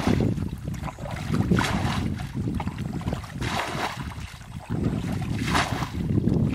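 Muddy water bailed by hand with a plastic bucket: three rushing splashes about two seconds apart as each bucketful is scooped and flung out of the pond. Steady wind rumble on the microphone underneath.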